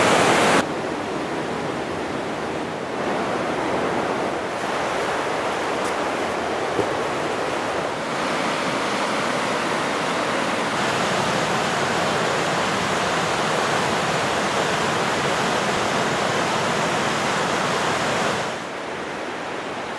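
Rushing white water of the Oulanka river rapids, a steady roar of water noise. It drops abruptly in level about half a second in and again near the end.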